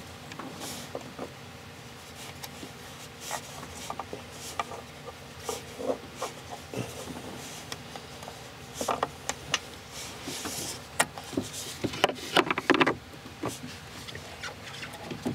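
Hand tools clinking and rattling under the hood as a socket on an extension is worked down onto a rear intake manifold bolt: scattered irregular clicks and knocks of metal on metal and plastic, busier in the last few seconds.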